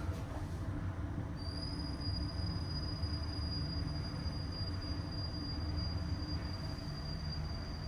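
Fujitec Exceldyne elevator car travelling: a steady low rumble, with a thin high-pitched whine from the drive that comes in about a second and a half in and holds steady.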